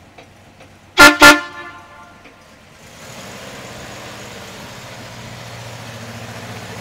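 Two short honks of the 1967 Ford C550 cab-over truck's horn about a second in, then, from about three seconds in, the truck's 292 Y-block V8 running steadily and growing slightly louder as the truck pulls away.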